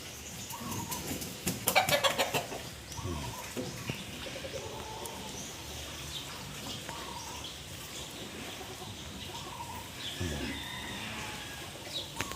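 Chickens clucking, with a quick rattle of sharp clicks about two seconds in.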